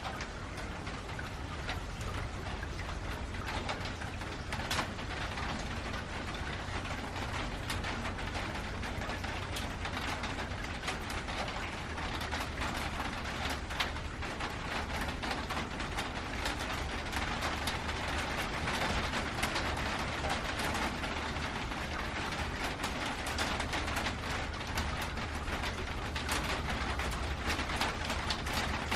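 Heavy rain falling on a metal roof: a dense, steady patter of drops with sharper single ticks standing out, growing a little louder after about the middle.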